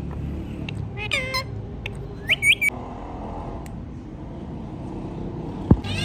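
Ring-necked parrot calling: one call about a second in, then three short, high chirps in quick succession.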